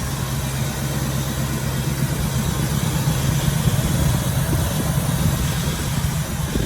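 Chevrolet 350 small-block V8 in a 1968 El Camino idling steadily.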